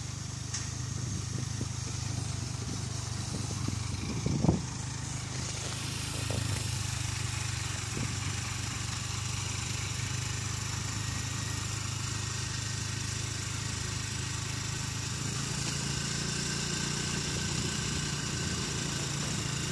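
An engine idling steadily, with a brief knock about four and a half seconds in.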